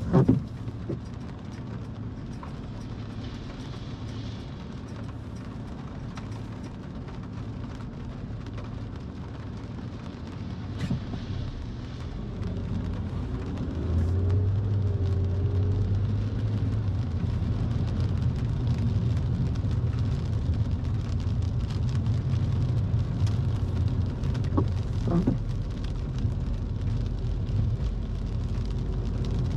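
Car running, heard from inside the cabin: a quiet low hum while stopped, then louder engine and tyre noise on a wet road as the car pulls away about halfway through.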